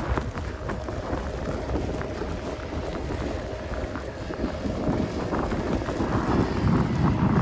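Wind buffeting the microphone in a snowstorm, a steady low rumble, with a vehicle's low rumble building near the end.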